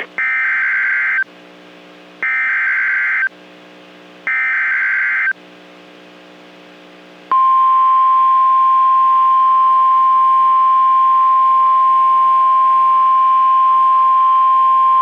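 NOAA Weather Radio EAS alert: three bursts of SAME digital header tones, each about a second long and two seconds apart. About seven seconds in, the steady single-pitch warning alarm tone begins, signalling a new warning about to be read.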